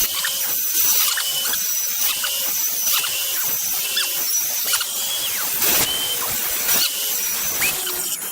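Hand work on a wooden board in a steady back-and-forth rhythm of about one stroke a second: a scratchy hiss with a short high squeak on each stroke.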